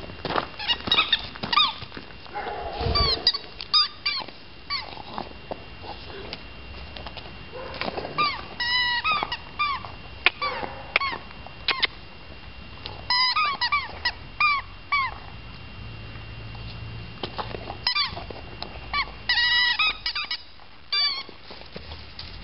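Rubber squeaky toy squeezed over and over, giving short rising-and-falling squeaks singly and in quick runs, with a dull thump about three seconds in.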